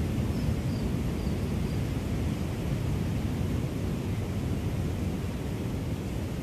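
Wind rumbling and buffeting on the microphone, with the wash of surf on a shore.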